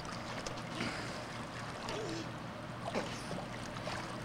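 Pool water splashing and lapping as a child swims close by, with a few brief faint voices about halfway through.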